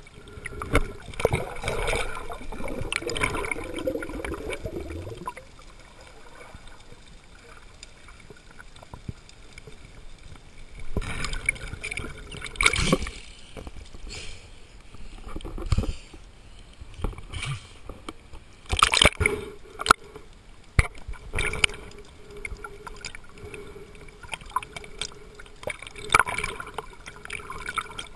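Seawater sloshing, splashing and gurgling around a handheld camera as it dips in and out of the sea surface while swimming, in irregular loud bursts.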